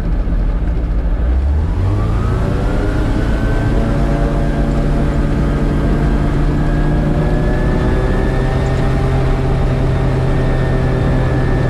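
Rotax 915 turbocharged four-cylinder engine of a gyrocopter, heard from the cockpit, rising in pitch about one to three seconds in as power comes up, then running steadily at high power during the ground roll.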